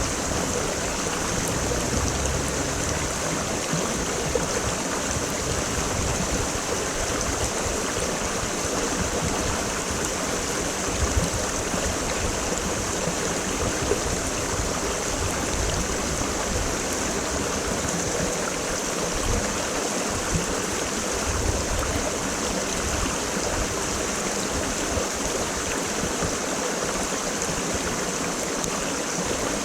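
A mountain stream running steadily over rocks, with a continuous rush of water and small irregular splashes and gurgles.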